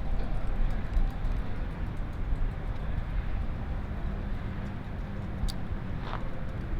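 Steady low rumble of vehicle noise outdoors, with a faint hum coming in partway through and a short high falling chirp about six seconds in.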